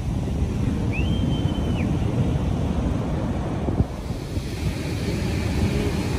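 Heavy hurricane-driven surf breaking and washing up the beach, a dense low rumble of waves, with wind buffeting the microphone. A brief high whistle sounds about a second in, and there is a short bump near the middle, after which the hiss of foaming surf comes up.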